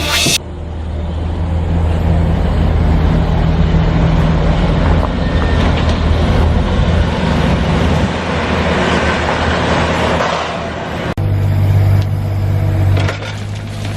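A large engine running steadily with a low hum, which cuts off abruptly about eleven seconds in and gives way to another steady engine hum.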